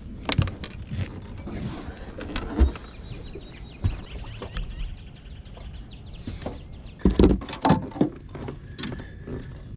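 Handling noise as a freshly caught bass is brought aboard a fishing boat and dealt with: irregular knocks and thumps, with a run of quick, even clicks in the middle.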